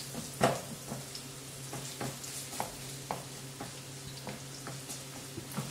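Diced carrots sizzling in olive oil in a frying pan, stirred with a wooden spatula that scrapes and taps against the pan a dozen or so times.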